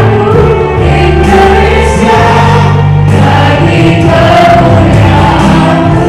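Christian praise-and-worship song, with a choir singing over instrumental accompaniment.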